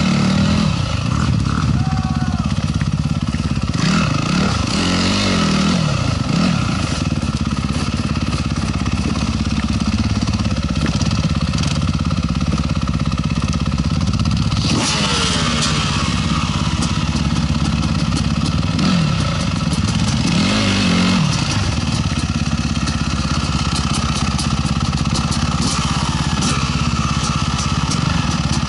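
Dirt bike engine idling steadily, with other dirt bikes and an ATV revving up and down now and then, about four times, as they ride past.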